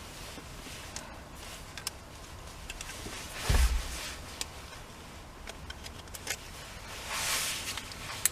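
Small clicks and knocks of metal steering parts being handled while a quick-release hub is fitted, with a heavy thump about three and a half seconds in and a scraping rustle near the end.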